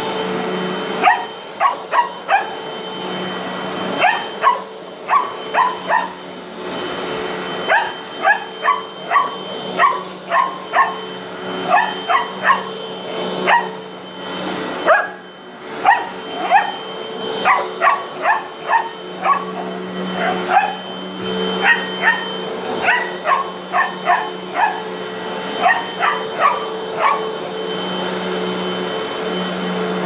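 A dog barking over and over at a running Hoover upright vacuum cleaner, whose motor hums steadily underneath. The barks come in quick runs of several at a time, with short pauses between runs.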